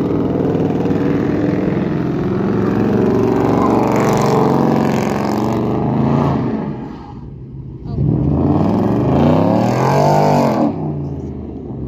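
Sports car engine revving hard while the car spins donuts on asphalt, its pitch rising and falling. It eases off about seven seconds in, then revs up high again and drops back near the end.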